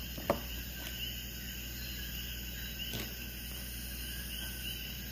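Background hum and hiss with faint, steady high insect chirping, and a soft click shortly after the start and another about three seconds in.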